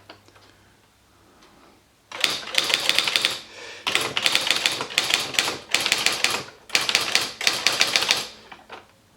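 Esselte 80 electric typewriter typing: several quick bursts of rapid key strikes, starting about two seconds in, with short pauses between bursts.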